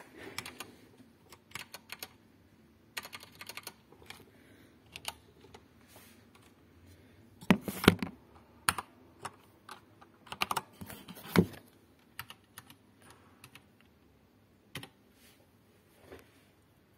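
Typing on a computer keyboard: scattered bursts of keystrokes, with two louder knocks about eight and eleven and a half seconds in.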